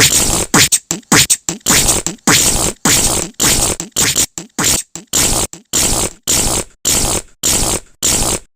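A person making loud rhythmic mouth noises close to the microphone, noisy puffs repeating about two to three times a second.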